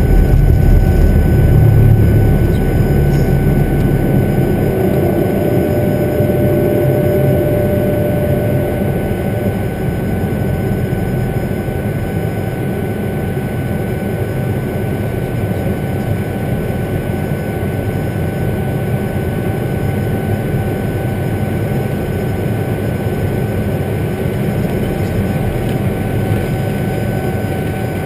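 Cockpit noise of an Eclipse 500 twin-turbofan jet at takeoff power during the takeoff and initial climb: a steady engine whine over airflow noise. A heavy low rumble from the wheels on the runway fades out in the first few seconds as the jet lifts off.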